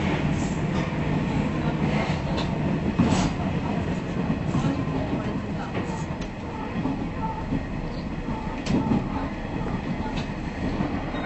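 KiHa 110 diesel railcar running along the line, heard from on board: a steady low engine and rolling rumble, with the clack of wheels over rail joints now and then.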